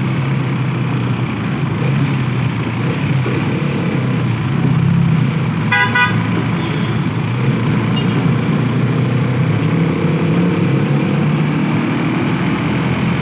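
A vehicle's engine running steadily while driving, heard from inside the cab; it is noisy and vibrating. A short horn toot about six seconds in.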